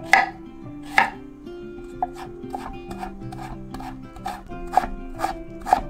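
Chef's knife mincing fresh ginger on a wooden cutting board: single knocks of the blade on the board about a second apart at first, then quicker chopping at about two strokes a second.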